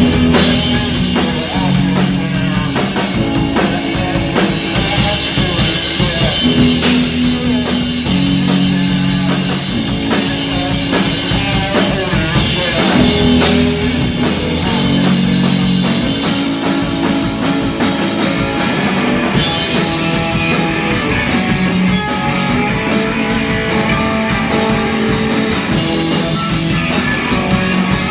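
Live rock band playing: drum kit, electric guitar and bass, loud and steady.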